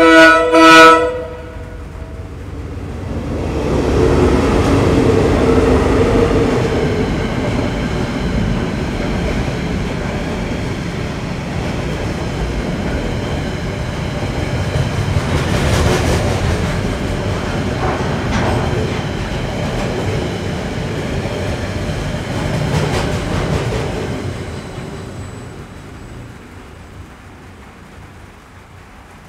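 Two loud blasts of a train horn from KiwiRail DL-class diesel-electric locomotives, then the locomotives passing close by at speed. A long container freight train follows, its wagons rumbling by with a few wheel clicks over rail joints, until the sound fades away as the train recedes.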